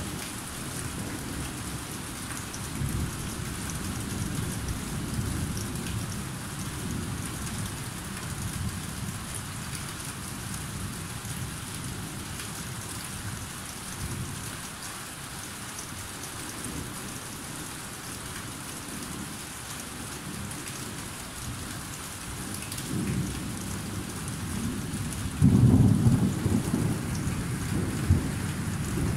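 Thunderstorm: steady rain falling, with low rolls of thunder coming and going. A louder thunderclap breaks out suddenly near the end and rumbles away over a few seconds.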